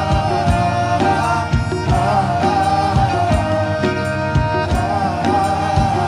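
Background music with a steady beat and a sung or played melody line, in a South Asian folk or film-song style.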